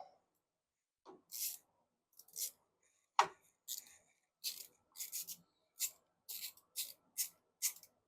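Small nuts being worked off a Briggs & Stratton Vanguard big block's starter solenoid with a hand tool: a series of short, sharp scraping clicks. They come irregularly at first, then about twice a second during the second half.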